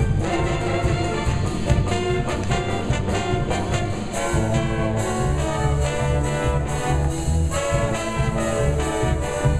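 Live pit band playing a brassy, jazzy big-band dance number, with the brass section to the fore and a steady bass underneath.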